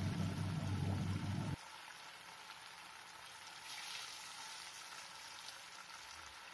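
Battered chicken pieces deep-frying in hot oil in a kadai, a steady sizzle. About a second and a half in, a low hum underneath cuts off suddenly. Around four seconds in, the sizzle briefly grows brighter as another piece is dropped into the oil.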